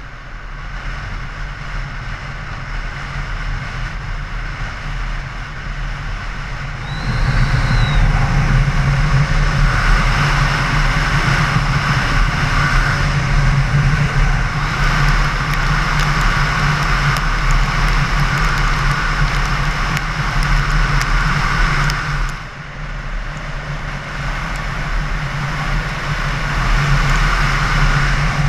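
Motorcycle engine running steadily at road speed, with wind and tyre noise heard from on the bike. The sound jumps louder about seven seconds in and drops back for a moment near the end.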